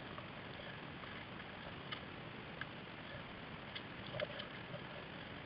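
Water around a plastic kayak on the move: a steady hiss with a few small ticks and drips scattered through it, the loudest a little knock about four seconds in.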